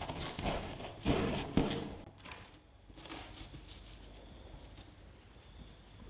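Sand-covered sticker paper being lifted and bent while loose colored sand slides and patters off it, with paper crinkling. The handling is loudest in the first two seconds and then fades to faint rustling.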